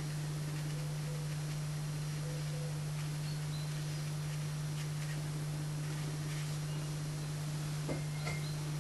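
A steady low hum runs throughout, with a few faint short high chirps and a light tap about eight seconds in.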